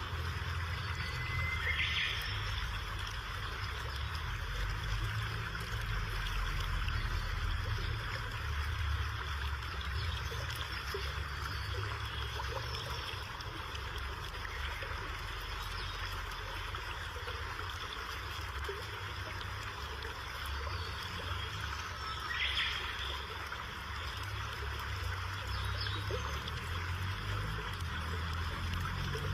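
Waterfall with a steady rush of falling water.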